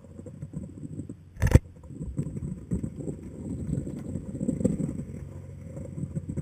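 Muffled rubbing and irregular knocking as the camera is moved about against rock inside a crevice. One sharp knock comes about a second and a half in.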